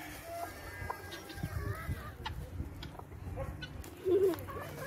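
Chickens clucking softly with short rising and falling calls while dust bathing, with a louder, lower cluck about four seconds in.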